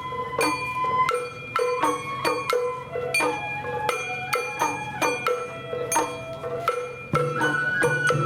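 Sawara festival hayashi: a high bamboo flute plays a melody in held notes over steady, evenly spaced drum and metal strikes, about two to three a second.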